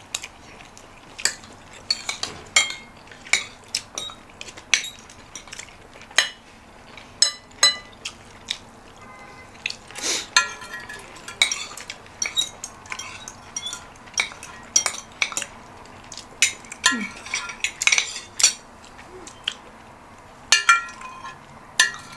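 Metal cutlery clinking and scraping against dishes while eating, in irregular sharp clinks with a short ring, every second or so.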